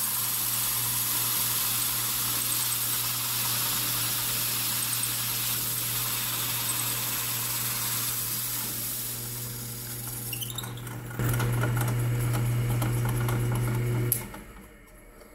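Delta DP220 drill press running a 2 5/8 inch hole saw through 3/4 inch plywood: a steady motor hum under a hissing cut. About eleven seconds in, the cutting noise drops and the hum gets louder. The sound stops about fourteen seconds in, and a short knock comes near the end.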